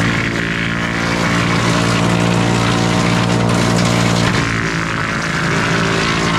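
Split-Fire wood chipper running with its engine at a steady speed while it chews through sawmill slabs, a dense grinding hiss over the engine note. About four seconds in the engine pitch dips briefly under the load.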